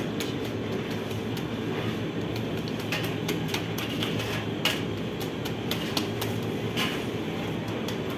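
Steady machine hum and rumble of a bakery oven, with scattered light clicks and taps as dough is pressed out by hand on a floured peel.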